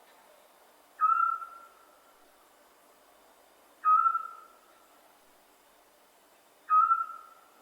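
Scops owl calling: three short whistled notes on one pitch, spaced about three seconds apart, each starting sharply and fading away quickly.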